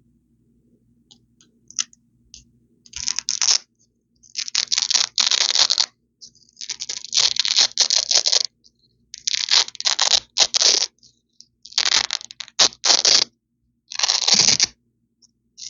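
Hook-and-loop (Velcro) strips ripped apart close to the microphone: a crisp, crunchy tearing. It comes as a series of rips of up to about a second and a half each, with short pauses between them, starting about three seconds in after a few faint ticks.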